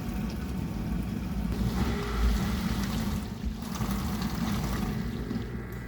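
Bosch dishwasher running, its pump humming steadily under churning water that swells and eases a couple of times.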